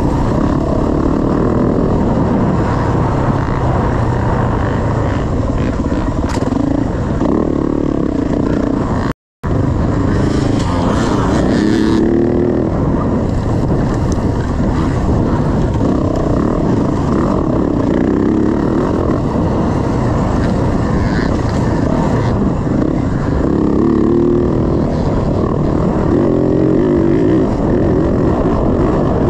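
Dirt bike engine running hard under load on a rough trail, revving up and down as the rider works the throttle. The sound cuts out completely for a moment about nine seconds in.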